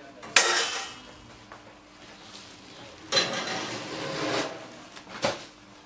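Pistachios in a sack rattling as the sack is lowered and handled. There is a sharp rattling hit about half a second in, a longer rattling rustle from about three to four and a half seconds, and a short knock near the end.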